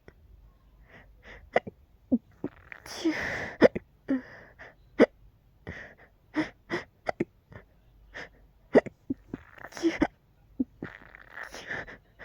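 A person hiccupping over and over, about twenty short sharp hiccups at uneven spacing, some with a small voiced squeak. Two longer breathy gusts, about three seconds in and near the end, are like sneeze-hiccups partway between a hiccup and a sneeze.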